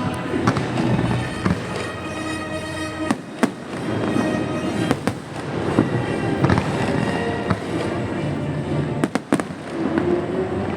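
Fireworks bursting in an aerial display: a string of sharp bangs and crackles at irregular intervals, over music playing throughout.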